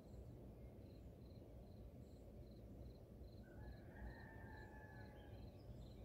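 Faint rural ambience: a cricket chirping steadily, about two or three chirps a second, over a low background rumble. A distant rooster crows once for about two seconds, starting a little past halfway through.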